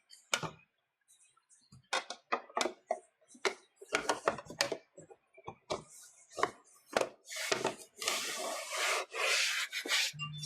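Plastic bottom cover of an Asus GL552VX laptop being fitted back onto the chassis: a series of clicks and knocks, then a longer rubbing scrape near the end.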